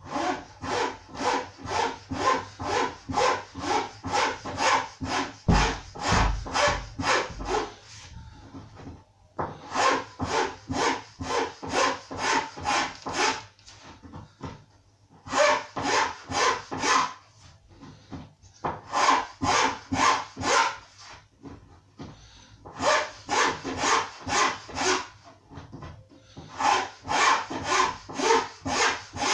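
A hand file rasping along the edge of a laminate worktop, about two to three strokes a second, in runs of a few seconds with short pauses. Each stroke files in and then lifts off rather than dragging back, trimming the last of the laminate flush with the edge.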